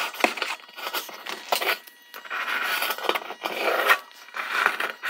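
Short, irregular scraping and rasping strokes with a few small clicks, from hand work on a pressed-paper grill mock-up taped to the car's nose.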